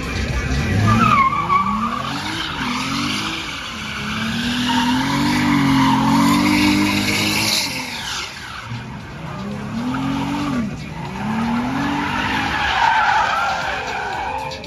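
Dodge Charger doing donuts: its engine revs up and down in repeated surges, held high for a few seconds in the middle, while the rear tyres spin and squeal on the pavement.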